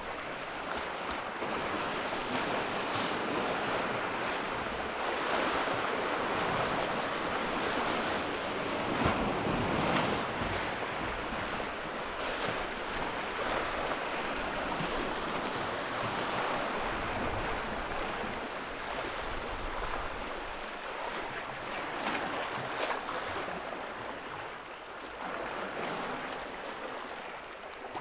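Sea waves washing and foaming over rocks at the water's edge, the noise swelling and easing every few seconds, with a louder surge about ten seconds in. Wind buffets the microphone.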